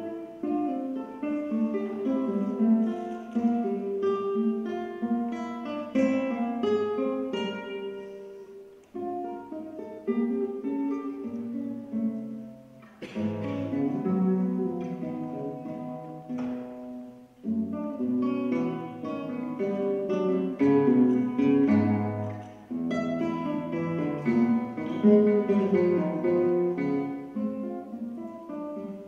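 Nylon-string classical guitar played solo: phrases of plucked notes and chords, with brief pauses between phrases and a couple of sharp strummed chords about halfway through.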